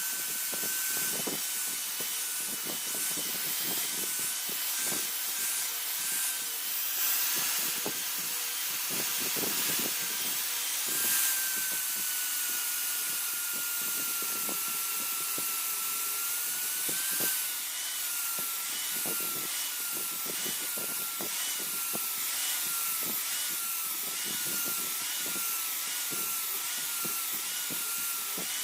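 An electric power tool's motor whining while it grinds or cuts, with a rough scraping hiss; from about halfway through its pitch dips roughly once a second as the work is pressed against it.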